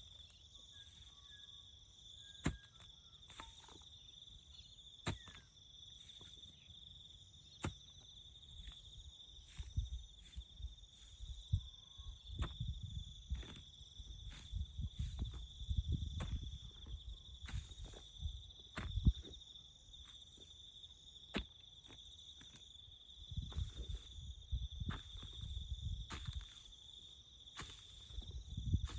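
Crickets trilling steadily and high. Sharp knocks come every few seconds, and there are stretches of low rumbling noise.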